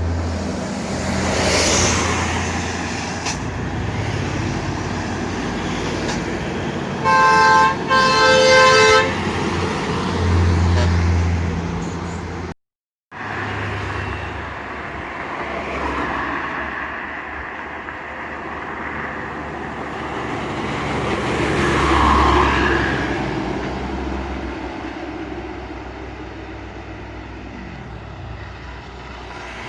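Heavy buses and trucks climbing a hill with their engines running under load. About seven seconds in, a bus's telolet horn, a multi-tone musical air horn, sounds a short blast and then a longer one, about two seconds in all. The sound cuts out briefly near the middle, and a vehicle passes close, loudest a little after twenty seconds.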